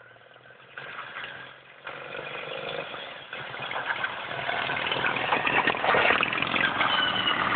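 Engines of racing riding lawn mowers, growing louder as the mowers come down the track, loudest as the nearest one passes close by about six seconds in.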